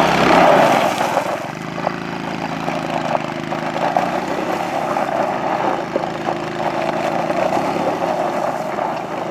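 Small 110cc youth ATV engine running steadily at high revs, loudest in the first second and a half, then holding an even pitch. The held, flat engine note fits the speed-limited low-speed mode that keeps these ATVs on the rev limiter.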